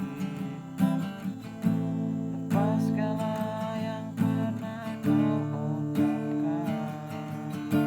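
Acoustic guitar strummed in chords, with a man's voice singing a melody over it.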